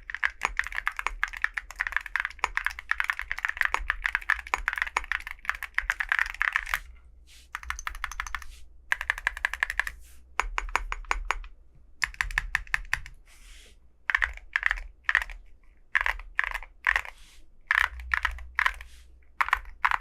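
Mechanical keyboard fitted with full metal keycaps being typed on: a fast, continuous run of keystrokes for about the first seven seconds, then short bursts and separate clusters of clicks with pauses between them.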